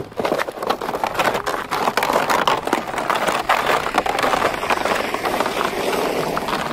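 A car driving slowly past on a snow-covered street, its tyres crunching steadily through the snow.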